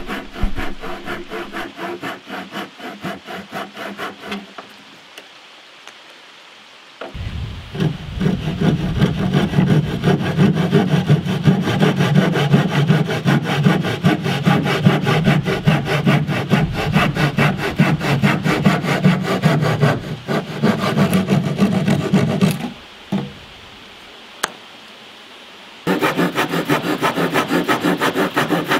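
Handsaw cutting through wooden form stakes in quick, steady back-and-forth strokes. The sawing comes in several runs with short pauses between them, the longest run in the middle. The saw is dull and in need of sharpening.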